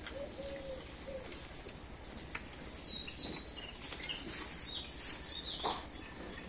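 Small birds chirping, with a string of short high chirps in the middle stretch over a low background hiss and a few faint clicks.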